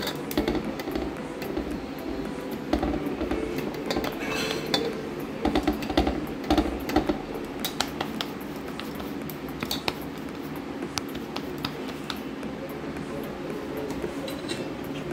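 Hands kneading and shaping rice-flour dough into a ball in a stainless-steel plate, with irregular light taps and clinks of fingers and dough against the metal.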